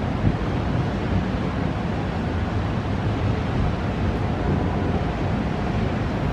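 Steady thunderstorm wind buffeting the microphone, a constant rushing noise heaviest in the low end, with no thunder clap.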